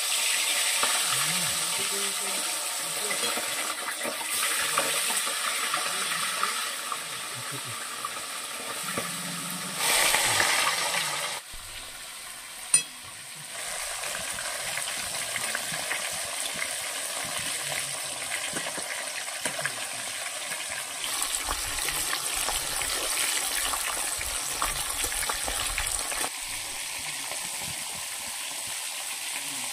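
Food sizzling in hot oil in a cooking pot, with stirring. The sizzle swells louder for a moment about ten seconds in, and a single sharp knock follows a couple of seconds later.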